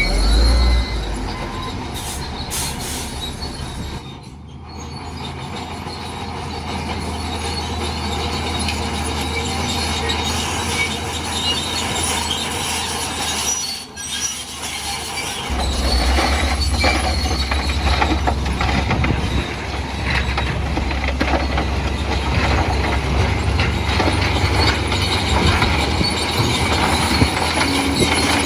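Crawler bulldozer working: its diesel engine running under load with the steel tracks squealing and clanking. The low engine rumble gets heavier about halfway through.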